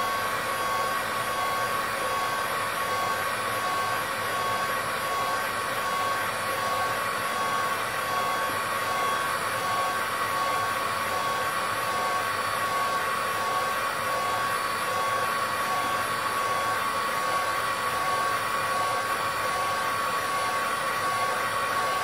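Hot air gun running steadily, a rush of blown air with a steady whine, heating freshly painted silver conductive paint on a rubber keypad to drive off the solvent.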